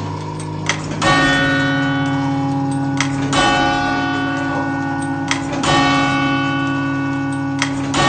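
Tower clock bell being struck by the clock's striking mechanism: three strokes a little over two seconds apart, each ringing on long with many overtones. Each stroke is preceded by a short sharp click.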